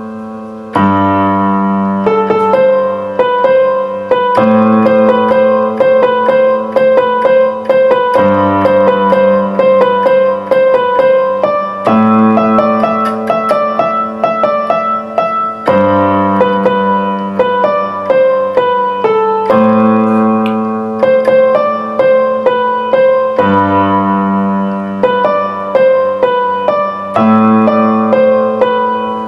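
Solo piano playing a slow pop-song arrangement: a low bass chord struck about every four seconds under a melody of repeated right-hand notes.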